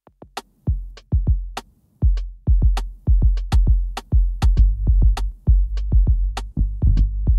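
Lo-fi hip hop beat coming back in after a brief drop: a few sparse drum hits at first, then about two seconds in the full drum-machine groove with deep bass returns and carries on steadily.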